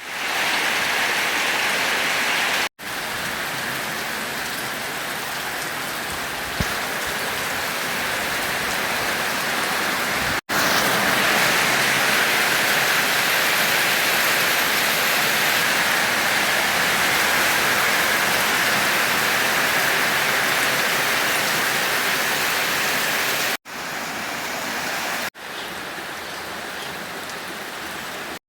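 Steady rain falling, made of several separate recordings joined with abrupt cuts. It gets louder about ten seconds in and drops quieter near the end.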